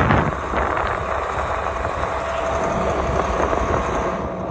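Vehicle engine running steadily under way, with a rumble and rolling noise heard from on board.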